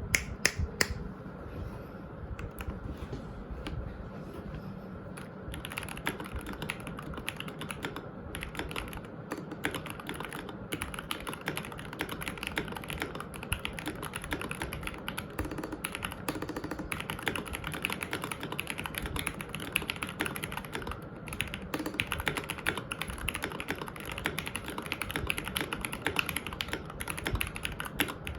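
Royal Kludge RK68 mechanical keyboard with Gateron Milky Yellow Pro linear switches, lubed stock stabilizers, thick PBT keycaps and a tempest tape mod, being typed on. Separate keystrokes for the first few seconds, then fast continuous typing.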